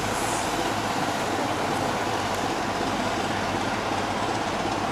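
Class 27 diesel locomotive's Sulzer engine running steadily at low power as the locomotive creeps slowly forward.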